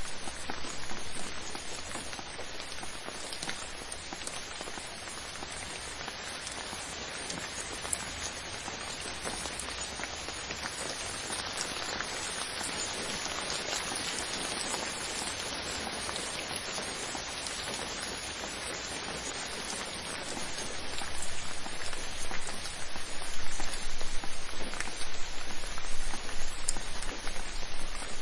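Steady rain falling and pattering on a surface, a dense even hiss of drops; it grows louder and more uneven about two-thirds of the way through.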